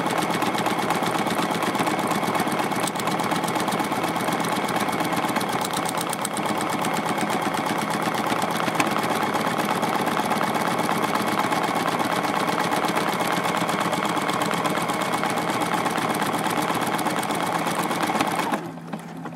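Juki F600 computerised sewing machine stitching a keyhole buttonhole automatically with its buttonhole foot: a fast, steady stitching run that stops near the end.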